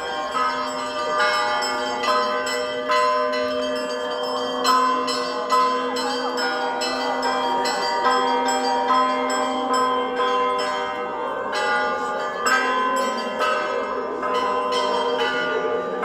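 Orthodox church bells rung for a feast-day procession: several bells struck in quick, irregular succession, several strikes a second, their tones overlapping and ringing on without a break.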